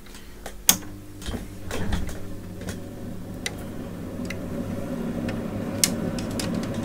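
Handling clicks and ticks on a workbench as multimeter test probes are picked up and moved: one sharp click just under a second in, the loudest sound, another near the end, and lighter ticks between. Under them runs a steady low hum that grows a little louder after the first second or two.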